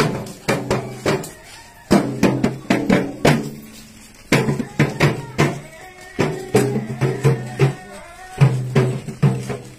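Drumming in a lively, uneven rhythm of about two to three strokes a second: sharp strikes, each followed by a deep ringing tone.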